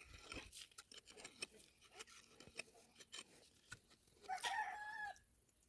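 A chicken calls once, a short held crow-like cry, about four seconds in, over faint scattered clicks and rustles.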